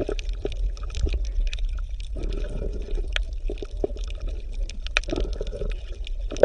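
Water gurgling and bubbling, with many small irregular pops and a steady low rumble underneath.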